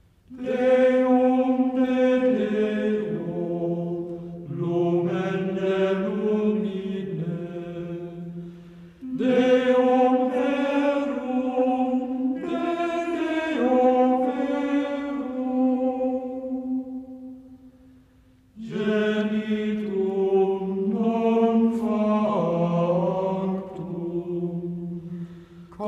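Slow, chant-like vocal music: singing voices holding long notes that step from pitch to pitch, in phrases of several seconds with short pauses between them.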